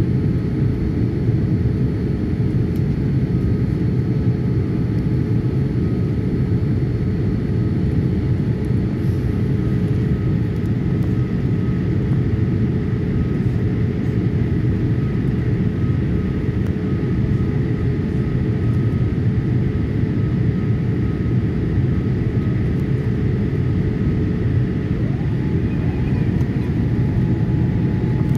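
Steady cabin noise inside a Boeing 787 Dreamliner descending towards landing: an even low rumble of engines and airflow with several faint steady whines over it. Near the end, one faint whine rises in pitch and then holds.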